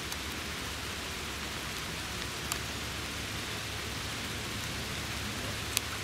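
Steady rain falling on leaves, an even hiss, with a few faint sharp ticks, the clearest near the end.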